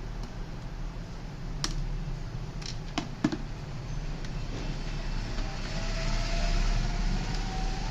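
Plastic parts of a laser printer's duplex tray being handled while it is taken apart to change its gears: a few sharp clicks and taps over a steady low hum, with a faint wavering squeak near the end.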